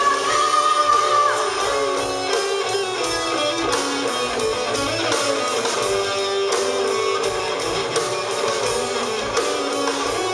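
Rock band playing an instrumental passage of a power ballad: a lead electric guitar holds a high note and bends it down about a second in, over strummed rhythm guitar and bass, with no vocals.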